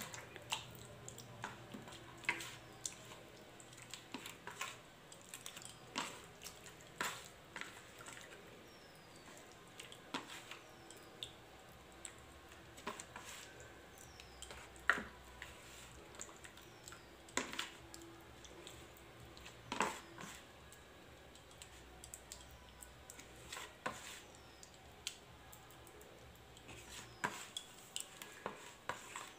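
Raw chicken pieces being mixed by hand in a thick yogurt-and-spice marinade on a plate: faint wet handling with scattered, irregular clicks and taps.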